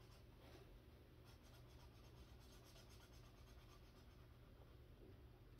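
Faint scratching of a Super Tips felt-tip marker coloring on paper in quick, repeated strokes.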